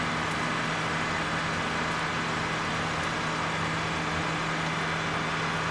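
Pressure-washer wand spraying water in a steady hiss over a constant low hum, used to rinse down a tractor and the wash-bay floor.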